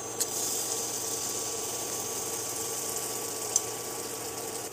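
Butter sizzling as it is spooned into a hot nonstick pan, starting with a light spoon click, over the steady hum of an induction cooktop.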